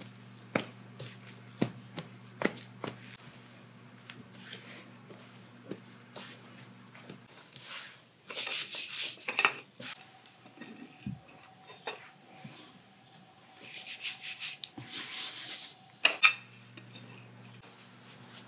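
Wooden rolling pin rolling scone dough out on a floured mat, making a rubbing sound in two longer stretches, after a few light taps of hands pressing the dough in the first three seconds.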